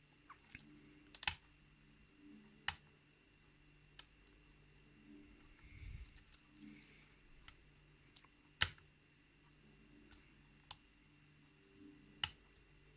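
Lock pick and tension wrench working the pins of a pin-tumbler challenge lock: faint, irregular small clicks of pins and pick, about a dozen, the loudest a bit past halfway.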